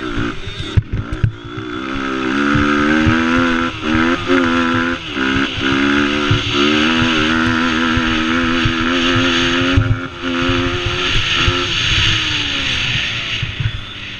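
Mini quad's small single-cylinder engine running hard at high revs, with brief dips about four and five seconds in, then falling away as the throttle closes near the end. Wind rumble and jolts from the rough ride sit under it on the on-board microphone.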